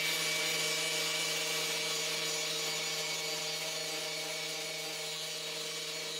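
Corded 4.5-inch angle grinder running steadily, its disc grinding down tack and spot welds on a car's steel quarter panel. It gives a steady whine under a high hiss.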